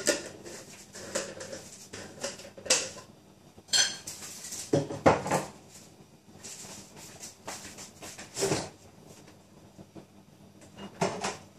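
Pots and metal utensils clattering in a kitchen: a string of separate knocks and clinks every second or two, one ringing briefly about four seconds in.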